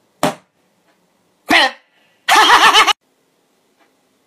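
Inflated rubber balloon squealing as air is let out through its stretched neck: three short squeals, the second falling in pitch and the last and longest wavering up and down.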